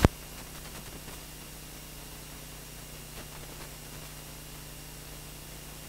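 Steady low hiss with a faint, even electrical hum: the background noise of the recording, with no speech or music.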